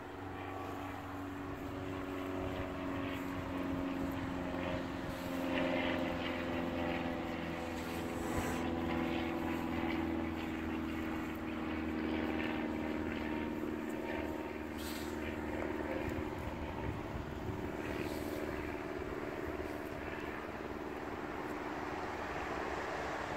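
Distant engine droning steadily, its pitch drifting slowly.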